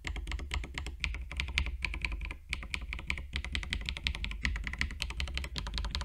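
Mechanical key switches on a small macro keypad in a 3D-printed case, typed on quickly in a continuous run of clacks. The case has been damped with PE foam switch pads and a sound-deadening pad to turn a hollow clack into a deeper tone.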